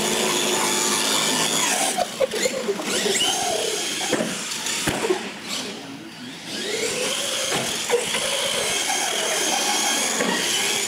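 R/C monster truck's electric motor whining as it speeds up and slows down several times while the truck drives over a concrete floor, with a sharp knock about five seconds in.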